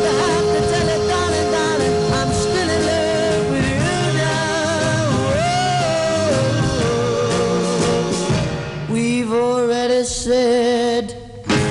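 A 1960s pop record playing: a singer's melody over the band's backing. It thins out near the end and drops away briefly before the music comes back in.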